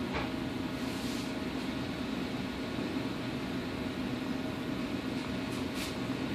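Steady low hum of a reef aquarium's pumps and filtration running, with a faint higher whine and a few brief soft hisses.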